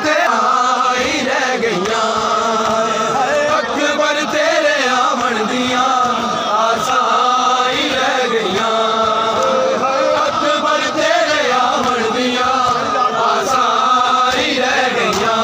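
Men's voices chanting a noha, a Shia lament in Punjabi, together in held, rising and falling lines.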